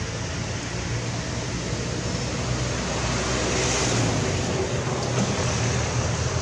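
Steady outdoor background noise: a low rumble under a broad hiss, growing a little louder about halfway through.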